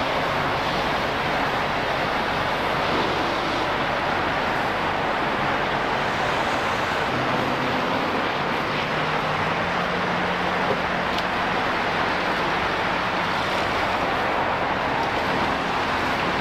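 Steady rushing noise with a vehicle engine's low hum underneath. The hum grows and rises slightly in pitch from about seven seconds in.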